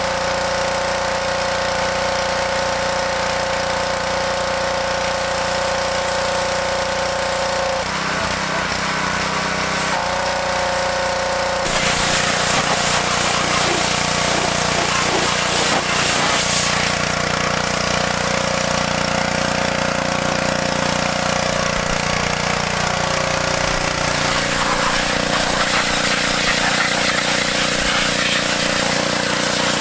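Pressure washer running with a steady droning pitch and a hissing water jet, spraying down motorcycle parts. The sound changes several times as the spray shifts.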